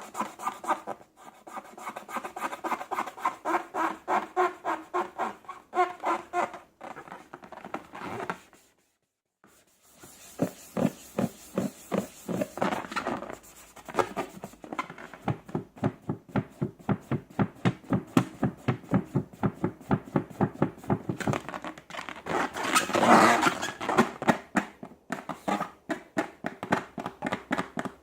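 Slime squelching as it is squeezed and poked by hand, in quick regular squishes about three or four a second, broken by a short pause about a third of the way in.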